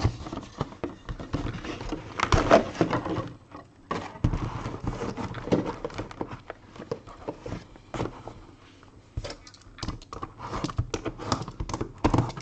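Handling noise from a sealed trading-card box: irregular taps, clicks and rustles of cardboard and wrapping being turned over and handled, busier in two stretches and quieter in between.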